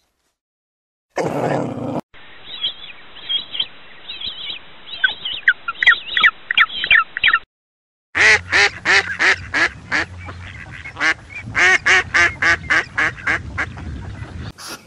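Mallard ducks quacking in quick runs of calls, about four a second, through the second half. Before that there is a brief noisy burst, then a separate stretch of repeated calls that come faster toward its end.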